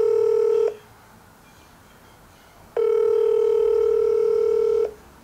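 Ringing tone of an outgoing phone call played through a smartphone's loudspeaker, while the call waits to be answered. One steady ring ends shortly after the start, and another lasting about two seconds comes on near the middle and stops just before the end, with quiet between.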